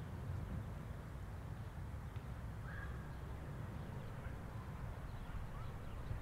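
Outdoor background: a steady low rumble with a few faint bird calls, the clearest one about three seconds in.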